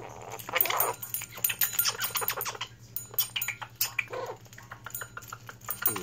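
Pet parrot babbling gibberish: a rapid, jumbled run of short squawks, clicks and chatter, with a few brief pitched calls.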